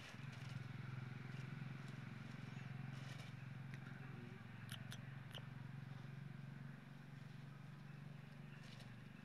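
Faint crackling of dry fallen leaves as a macaque rummages through them with its hand, a few short crackles around the middle, over a steady low hum.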